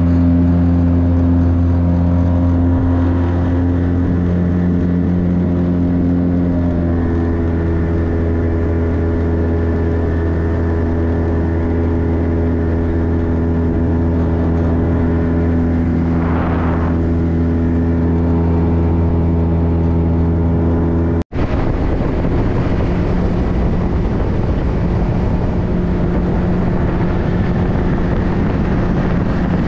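An engine running steadily at constant speed. About 21 seconds in the sound cuts out for an instant, then the engine carries on under a heavy rush of wind on the microphone.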